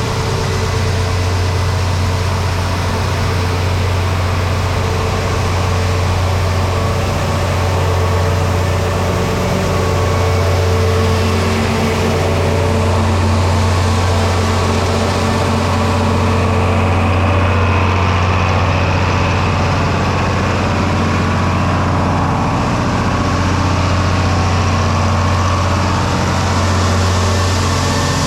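Farm tractor's diesel engine idling steadily under hydraulic load, running the wagon's hydraulic door while corn unloads, with a steady even hiss over the hum.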